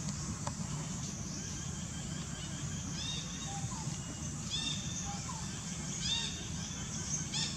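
Short arching bird calls repeated every second or so, starting about three seconds in and getting louder near the end, over a steady low hum.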